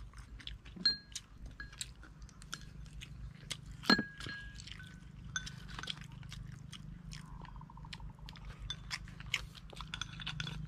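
Chopsticks clicking and scraping against porcelain rice bowls, some taps leaving a short ringing clink, mixed with chewing as two people eat. The sharpest clink comes about four seconds in.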